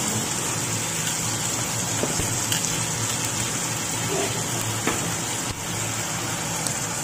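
Salmon steak and ginger sizzling steadily in oil in a stainless steel wok, with a few light clicks of tongs against the pan.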